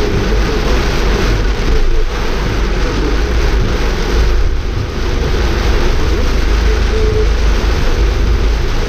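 Vehicle driving on a wet road in heavy rain: a steady, loud rumble and hiss of tyres, wind and rain, with no distinct events.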